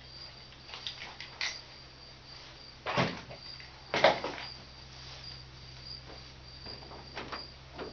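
Insects chirping in a steady pulsing trill, with a few sharp knocks and clunks over it, the two loudest about three and four seconds in.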